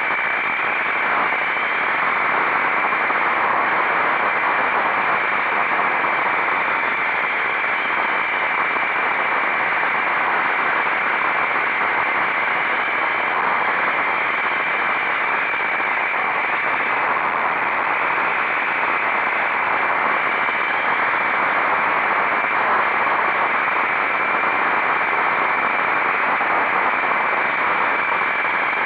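Steady rushing wind noise on a motorcycle rider's microphone at speed, with a thin, steady high whine over it and no change in level.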